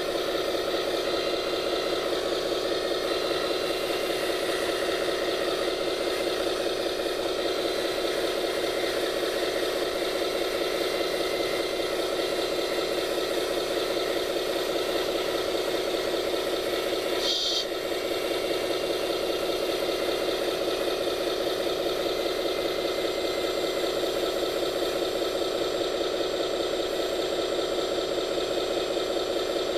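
Scale RC4WD model construction machine running with a steady mechanical hum and rattle, briefly interrupted by a short high blip about two-thirds of the way through.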